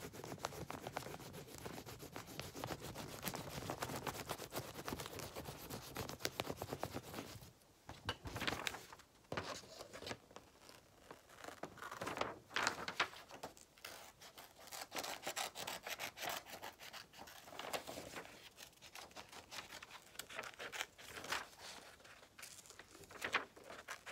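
Colouring in on paper: a drawing tool rubbing back and forth in quick scratchy strokes, dense for the first seven seconds or so, then in shorter spells with pauses while the paper is handled.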